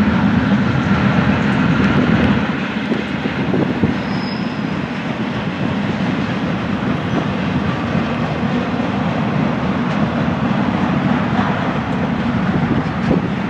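Freight train cars rolling past on the rails: a steady rumble of steel wheels on track, easing slightly about two seconds in.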